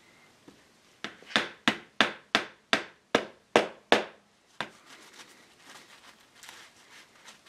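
A hammer tapping a glued wooden wedge into the back joint of an antique chair: about nine quick, sharp wood-on-wood blows at roughly three a second, then one lighter tap.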